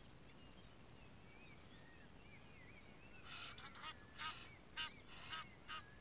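A goose honking: a run of about seven harsh calls, spaced roughly half a second apart, starting about three seconds in. Faint warbling songbird calls sit underneath.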